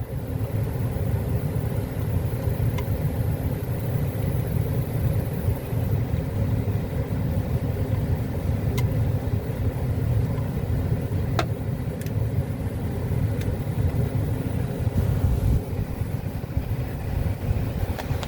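Older Carrier HVAC unit running just after start-up: a steady blower rumble with a low hum, and a few faint clicks.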